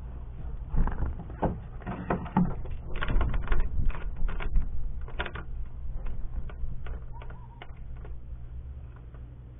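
Irregular clicks and knocks of an airsoft M4 rifle and its parts being handled, densest in the first half and thinning out, over a steady low hum.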